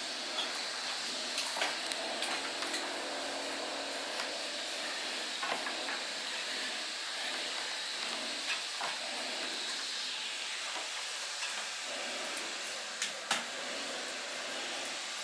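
Hand sanding or scraping of a plaster of Paris ceiling: a steady scratchy hiss with scattered light clicks from the tool, two sharper ones near the end.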